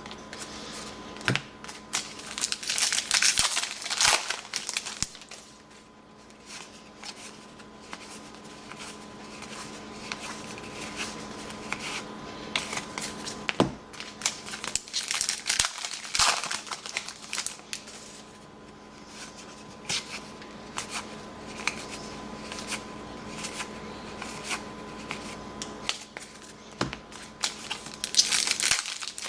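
Trading card packs being handled: wrappers crinkling and tearing, cards rustling and tapping, in several rustling bursts with scattered clicks between. A faint steady hum runs underneath.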